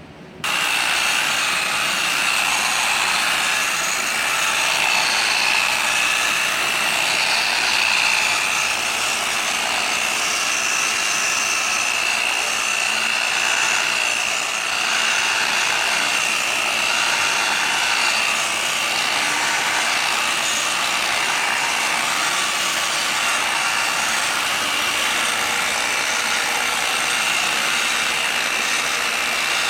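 High-speed buffer switched on about half a second in, then running steadily with a high whine as its pad polishes a plastic headlight lens.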